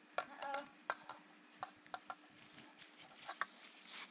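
A few scattered light clicks and taps, with a brief high-pitched vocal sound from a toddler about half a second in.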